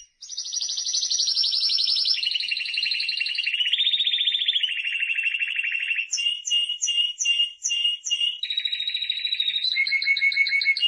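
Timbrado Español canary singing a continuous song of rapid rolling trills that jump to a new pitch every second or two. Midway it switches to a run of separate notes repeated about two to three times a second, then goes back to trills near the end.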